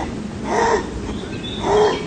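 Two harsh, caw-like animal calls about a second apart, the second slightly louder.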